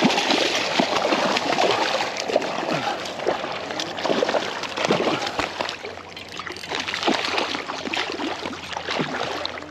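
Water splashing and sloshing close to the microphone, irregular and continuous.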